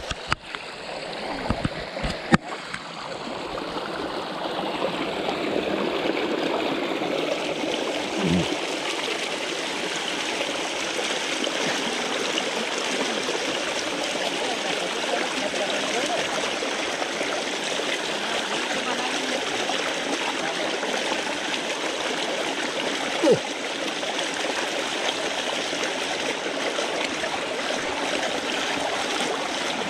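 Muddy water gushing steadily down a small earthen channel and over a mesh fishing net, with a few knocks from handling in the first couple of seconds.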